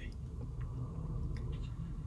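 Room tone: a low steady hum with a few faint ticks.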